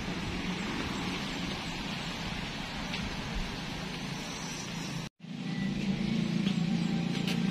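Steady low motor hum over background noise, cut off by a brief silent dropout about five seconds in, then resuming with a few faint clicks.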